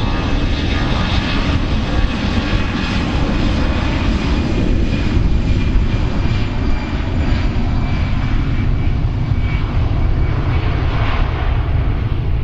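Airbus A320 airliner's jet engines running steadily as the aircraft rolls past and moves away: a deep rumble with a faint whine.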